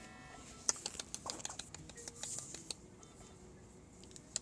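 A short electronic beep of several steady tones from NICU monitoring equipment at the start, then scattered light clicks and taps, the sharpest about a second in.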